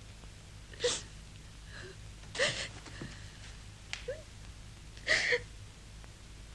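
A woman crying: short gasping sobs with little whimpers, four of them a second or two apart.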